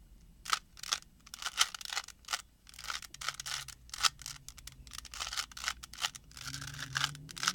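Plastic 3x3 Rubik's cube being turned by hand during a solve: quick, irregular clicks and scrapes of its layers twisting, several a second.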